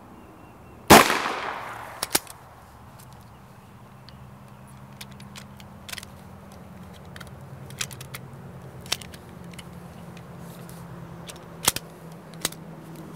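A single .22 LR shot from a Keystone Mini Fugly Mosin bolt-action pistol about a second in, with a short ringing tail. It is followed by scattered metallic clicks and clacks as the bolt is worked to eject the case and chamber the next round.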